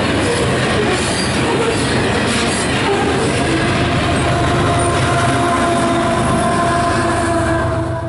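Loaded grain hopper cars of a freight train rolling past close by with a loud, steady rumble of wheels on rail. Partway through, the tail-end CP ES44AC diesel locomotive comes by, and a steady squealing tone joins the rumble about three and a half seconds in.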